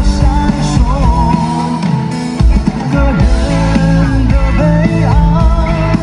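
Live band music: a male voice singing a ballad over electric guitar, keyboard and drums. The bass and drums drop back for a moment about two seconds in, then the full band comes back.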